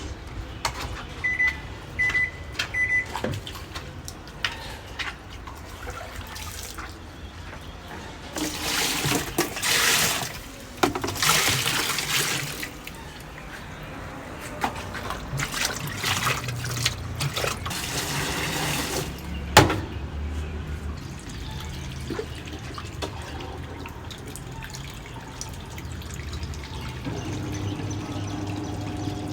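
Water running and splashing, with three short beeps about a second in, two bursts of rushing, spraying water about a third of the way through, scattered clicks, and one sharp knock about two-thirds of the way through.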